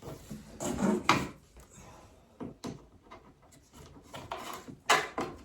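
Flat-pack drawer parts being fitted together by hand: wooden board knocking and scraping. There is a cluster of knocks about a second in, a few single clicks, and another cluster near the end with a sharp knock just before it stops.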